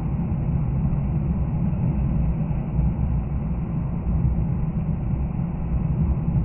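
Steady in-cabin road noise of a car cruising at about 100 km/h on a snow-covered expressway: a low, even rumble of tyres and engine.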